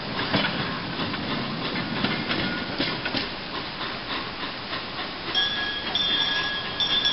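A 15-inch gauge steam locomotive rolling slowly on its track, with clicks and knocks from the wheels and a hiss of steam. From about five seconds in comes a steady high-pitched squeal of wheels on the rails.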